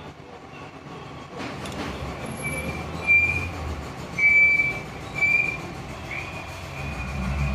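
Metal rubbing on metal as the parts of a KCNC Master 12-speed bicycle cassette are worked by hand, giving several short high squeals with a low rubbing rumble underneath.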